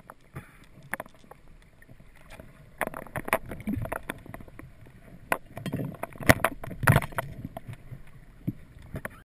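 Underwater handling noise from a diver's camera in its waterproof housing: a low wash of water with a string of irregular clicks and knocks, denser and louder past the middle.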